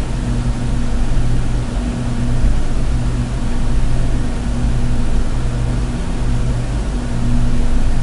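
Steady low electrical-sounding hum with hiss over it, its tones wavering slightly in strength; no typing clicks stand out.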